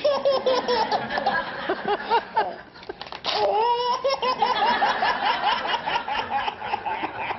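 Eight-month-old baby's deep belly laughs in quick runs of high-pitched pulses. About three seconds in, a short burst of paper tearing sets off a fresh run of laughter at about four pulses a second.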